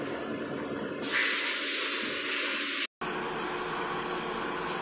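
CNC lathe running with a steady machine noise. About a second in, a loud hiss starts and lasts about two seconds, then stops abruptly. The steady machine noise then goes on at a slightly different tone.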